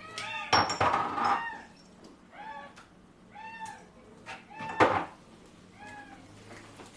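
Domestic cat meowing over and over, short rising-and-falling meows about once a second. Two louder noisy bursts stand out, one near the start and the loudest about five seconds in.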